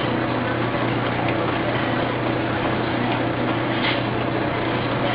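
Inkjet bat printer running steadily: a constant mechanical hum and hiss with a few faint ticks.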